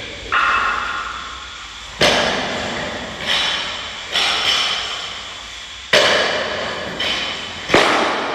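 Metal weight plates clanking against a barbell as they are loaded onto its sleeve: about seven sharp clanks at uneven intervals, each ringing on for a second or so.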